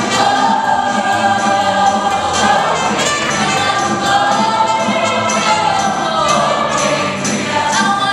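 A musical-theatre chorus singing together with a live pit band, a steady beat running under the voices.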